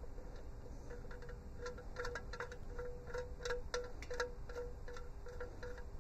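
Light, irregular metallic clicks and tinks, a few a second, over a faint steady hum.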